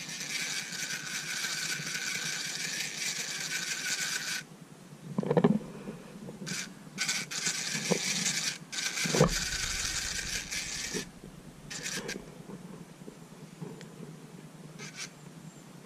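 Abu Garcia Black Max spinning reel being cranked, its gears whirring steadily as monofilament line winds onto the spool; the whir stops suddenly about four seconds in. Shorter bursts of cranking and a few handling knocks follow.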